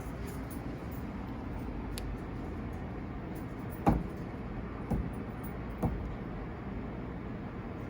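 Steady low machine rumble with three sharp knocks about a second apart near the middle, the first the loudest.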